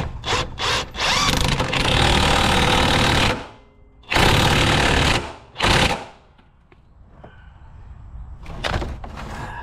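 A power tool running in three bursts: a long one of about two seconds, a second of about a second, and a brief third one. It then falls quiet, with only light clicks.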